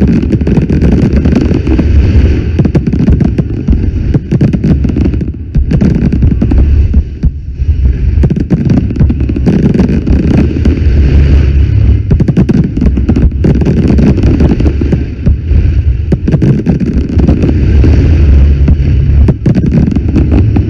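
Fireworks going off in a dense, continuous barrage: rapid overlapping bangs and crackles over a deep rumble, loud throughout.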